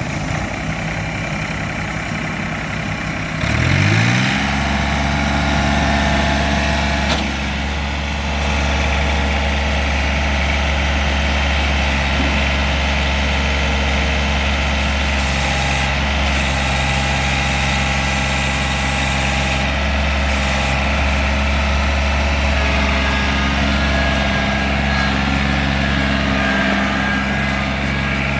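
John Deere 855 compact tractor's three-cylinder diesel engine idling, then revving up about four seconds in and holding steady at the higher speed.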